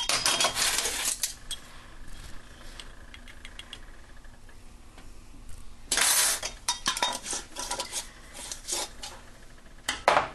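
Spoon clinking and scraping against spice containers and a stainless steel pot as dry seasonings are measured in. The rattling clicks come in bursts: a dense one at the start, scattered clicks after it, another dense run about six seconds in, and a short burst near the end.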